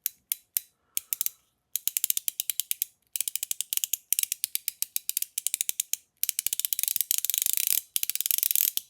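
Mechanical milk cap fidget toy clicking: a few slow single clicks at first, then runs of rapid ratcheting clicks, about a dozen a second, each run a second or two long with short pauses between.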